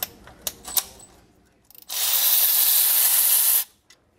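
A pressurised spray hissing steadily for about a second and a half, starting about two seconds in and cutting off sharply, after a couple of light clicks.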